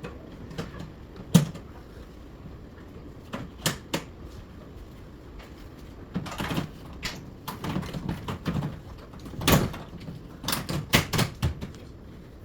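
Irregular clicks and knocks of an LG one-way ceiling cassette air conditioner's parts being handled and fitted back together, some single and some in quick clusters; the sharpest knock comes about a second and a half in.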